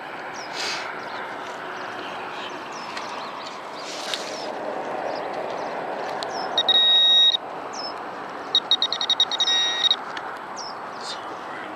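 Teknetics Tek-Point pinpointer beeping. A high steady beep comes about seven seconds in, then a rapid run of pulsed beeps, signalling a metal target close to the probe tip. Under it runs a steady hiss of sand being dug.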